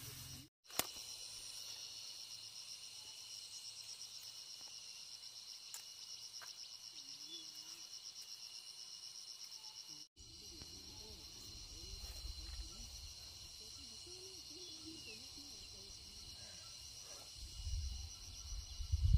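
Steady chorus of insects trilling in several high, evenly pulsing bands. From about halfway through, a low rumbling noise joins in and grows louder near the end.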